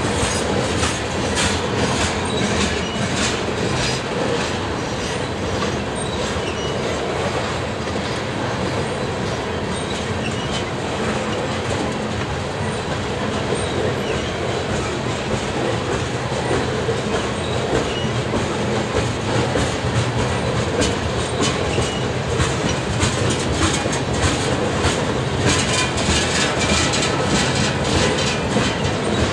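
A freight train of tank cars rolling past with a steady rumble of steel wheels on rail. Repeated clicking comes as the wheels cross rail joints, thickest at the start and in the last few seconds.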